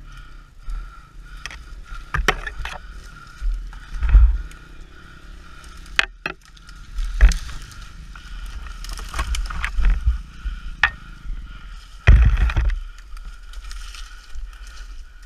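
Trail motorcycle ridden slowly over a rough forest trail: a steady low rumble with a constant thin hum, broken by many sharp knocks and scrapes as branches hit and brush past the bike and rider. The heaviest thumps come about 4, 7 and 12 seconds in.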